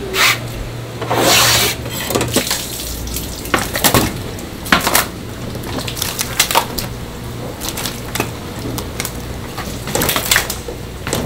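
Live flatfish slapping and flapping against a plastic crate as they are tipped in from a net, with splashes of water: an uneven run of sharp slaps and knocks, with longer wet splashes about a second in and near the end.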